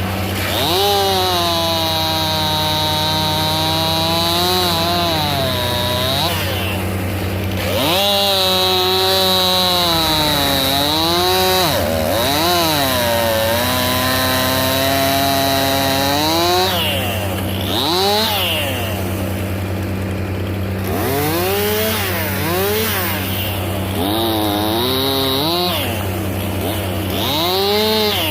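Chainsaw cutting willow wood, its engine held at high revs for several seconds at a time, sagging in pitch under load and climbing again between cuts. In the last third the revs rise and fall more quickly in short blips.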